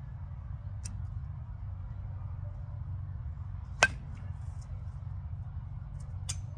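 Marucci Cat X composite baseball bat striking a pitched baseball: one sharp crack about four seconds in, over a steady low rumble.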